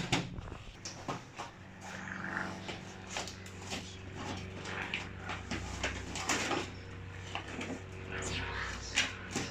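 A toy makeup set's plastic packaging being handled and opened: scattered rustles and clicks over a steady low hum.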